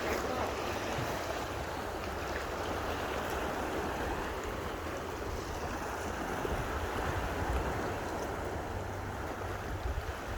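Steady rush of flowing water, with a low fluttering rumble of wind on the microphone.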